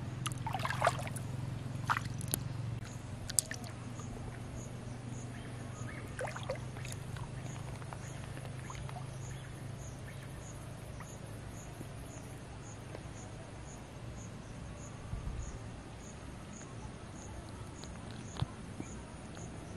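An insect chirping in short, high, evenly spaced pulses, with a few sharp clicks in the first few seconds and once near the end over a low steady hum.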